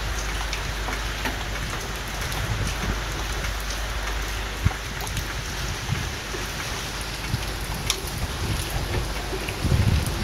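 Heavy rain falling steadily, an even hiss with scattered sharp drop hits. A low rumble comes in near the end.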